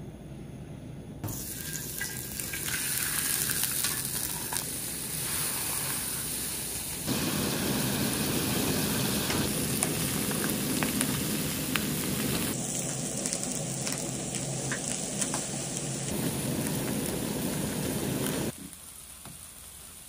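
Pike conger eel fillets and whole shrimp sizzling as they grill on a hot cast griddle pan over a portable gas burner. The sizzling starts about a second in, jumps in loudness at several cuts between takes, and falls away near the end.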